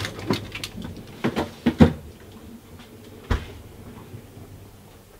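A run of handling knocks and clicks in a kitchen, as of a cupboard or drawer being shut and a small cup picked up. The loudest knocks come just under two seconds in, with one sharp knock a little after three seconds.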